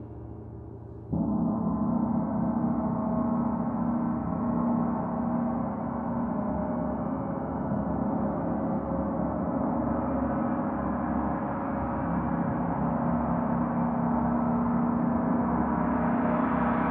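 Gongs sounding together in a dense, sustained wash of many overlapping tones. About a second in they jump suddenly louder and stay loud, swelling slightly.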